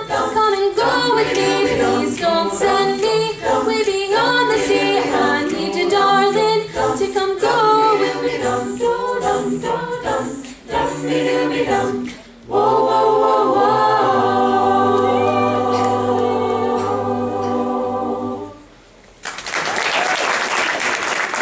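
Mixed-voice a cappella group singing a doo-wop arrangement into microphones, a bass voice stepping beneath the harmonies. After a brief break it ends on a long held chord, and audience applause breaks out near the end.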